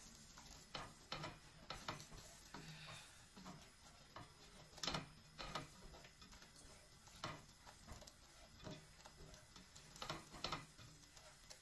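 Plastic slotted spatula scraping and tapping against a stainless steel pot while scrambling eggs: light, irregular clicks and knocks, the loudest about five seconds in.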